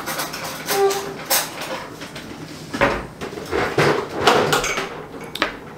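Irregular clicks, taps and rustles of a metal spoon and grape leaves handled at a table while stuffed grape leaves are being made.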